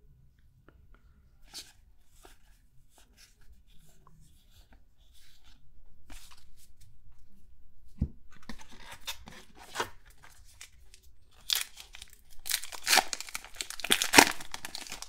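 A baseball-card pack wrapper being torn open by hand. After a few seconds of quiet handling, the wrapper crinkles and tears in a series of bursts, loudest in the last few seconds.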